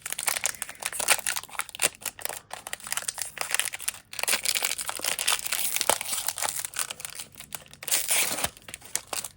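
Wrapper of a sealed SkyBox basketball card pack being torn open and crinkled in the hands: a dense run of crackles and small tears, with a brief pause about four seconds in.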